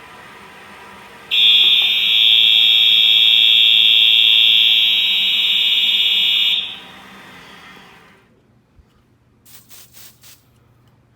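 Fire alarm horn sounding a loud, steady, high-pitched tone. It starts about a second in and cuts off after about five seconds. A few faint clicks follow near the end.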